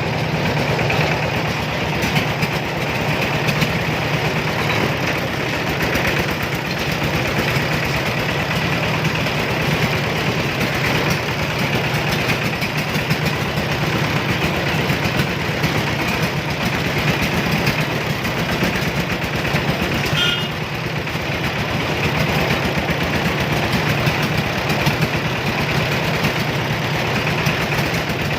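Three-wheeler cargo vehicle's engine running steadily with an even, rapid low pulse. A brief high-pitched tone sounds about two-thirds of the way in.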